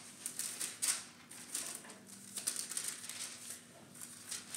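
Thin Bible pages being leafed through: a quick, irregular run of soft paper rustles and flicks.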